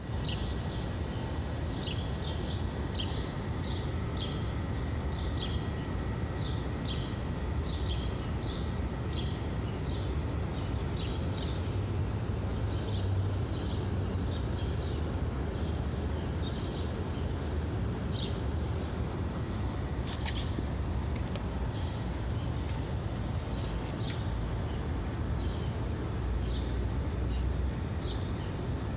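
Outdoor ambience: a steady low rumble under a run of short, high chirps, about two a second, that fade out about halfway through. A thin, steady high whine runs throughout, and a few sharp clicks come in the second half.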